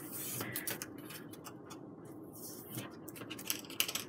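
A wooden barbecue skewer dragged through score lines in foam board: dry scratching with short ticks and clicks, which come thicker in the second half.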